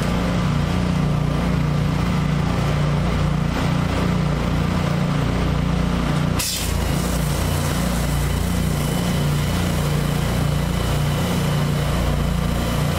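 Pressure washer engine running steadily under load, with high-pressure water hissing from a rotary surface cleaner on concrete and then from a spray wand. About halfway there is a brief dip, after which the spray hiss is stronger.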